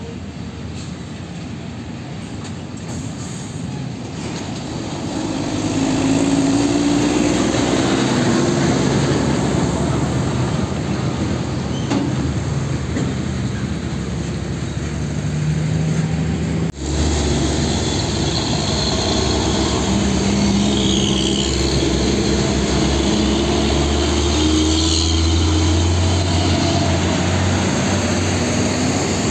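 Diesel tractor-trailers driving past close by. A Hino tractor hauling a container trailer approaches and grows louder, its engine note audible over tyre noise. Partway through, the sound cuts abruptly to a second container truck passing, its engine running low and steady.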